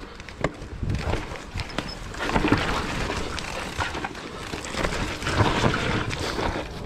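Mountain bike riding a muddy trail: wind rushing over the microphone with tyre noise and the bike's knocks and rattles, getting louder about a second in as it picks up speed.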